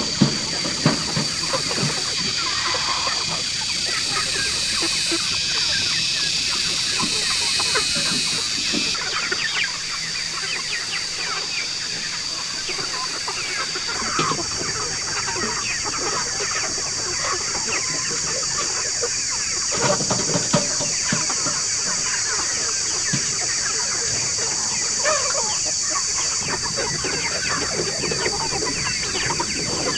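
A large flock of chickens clucking and calling over one another without pause, over a steady high-pitched hiss.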